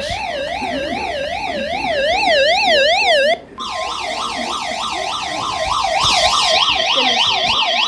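Electronic warbling alert siren sounding an emergency warning, its pitch sweeping up and down about three times a second. It cuts off for a moment about three and a half seconds in, then starts again with a steady high tone held under the warble.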